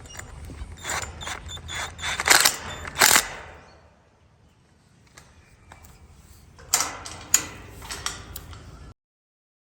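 Irregular sharp clicks and knocks in two clusters, the loudest a few hard knocks near the start. There is a quiet stretch between the clusters, and the sound cuts off abruptly near the end.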